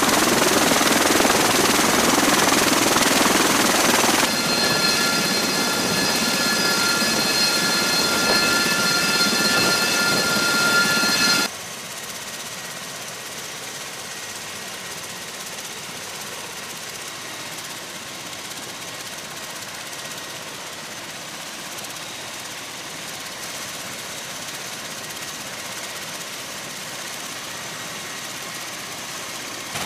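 MV-22 Osprey tiltrotors running on a flight deck: the loud, steady rush of the turboshaft engines and proprotors. A high engine whine joins it about four seconds in. At about eleven seconds the sound drops suddenly to a quieter, steady rush.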